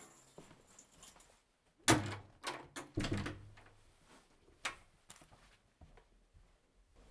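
Muffled thumps and footsteps of black leather lace-up shoes stepping onto a rag rug: half a dozen separate knocks, the loudest about two seconds in.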